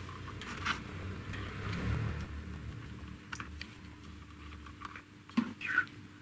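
Small handling noises of a plastic CB hand-microphone housing being fitted together and a screw being tightened with a small screwdriver: a few scattered light clicks and scrapes, with the sharpest pair about five and a half seconds in.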